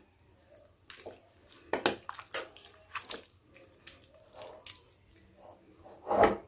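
A spoon stirring thick chicken curry in a pan: wet sloshing with irregular clicks and knocks of the spoon against the pan, the loudest knock near the end.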